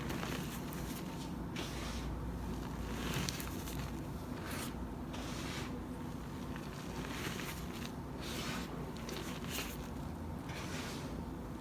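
Dyed crunchy ASMR blocks being crushed and crumbled by hand. The soft crunches repeat roughly once a second.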